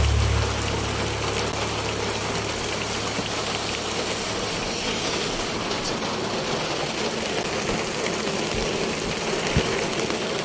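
Steady rain falling: an even hiss with scattered drop ticks. A low rumble fades out in the first half second.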